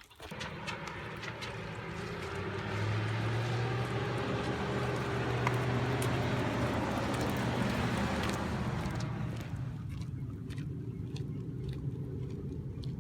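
A car driving past: its engine and tyre noise swell over the first few seconds, are loudest in the middle, and fade away about ten seconds in, leaving a lower rumble of traffic.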